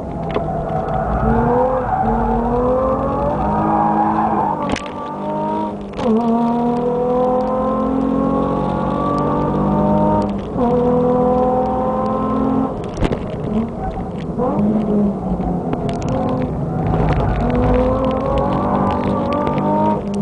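Nissan 350Z's V6 engine with an aftermarket full exhaust, heard from inside the cabin, pulling hard on track. The pitch climbs under acceleration and drops back sharply at each gear change, several times over, with a short uneven stretch between.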